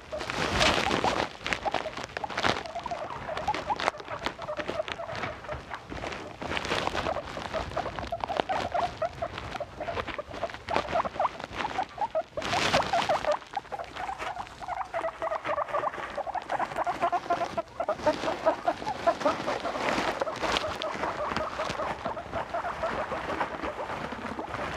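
Guinea pigs squeaking in a long run of rapid, short calls, with louder bursts about a second in and again about halfway through.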